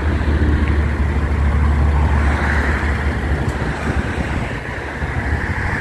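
Road traffic passing on the highway: a low engine rumble and tyre noise that ease off a few seconds in.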